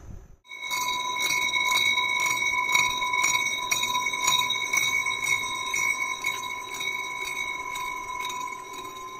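Large disc facing cutter on a milling machine cutting across the deck of a cast-iron cylinder head to resurface it. The disc rings with a steady, bell-like tone, ticking about twice a second as it turns. It starts abruptly about half a second in.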